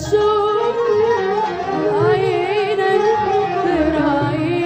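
Arabic orchestral music: a melody line with vibrato over a low bass note that comes back every second or two.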